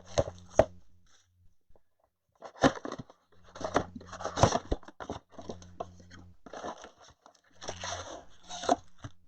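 Trading-card box packaging being torn open: several bursts of tearing and crunching with sharp clicks.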